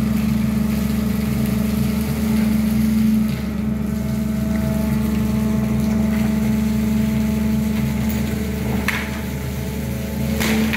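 SANY crawler excavator's diesel engine running at a steady pitch while the boom lifts a full bucket of rock out of the pit, with a couple of brief knocks near the end.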